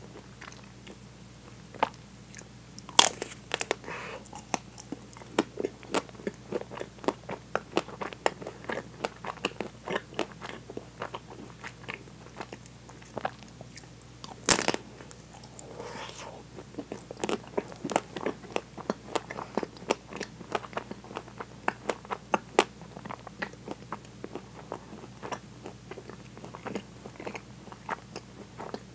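Close-miked bites into a chocolate-coated ice cream bar with nut pieces in its coating: the hard chocolate shell cracks, then chewing brings many small crunches. The loudest bites come about three seconds in and again near the middle.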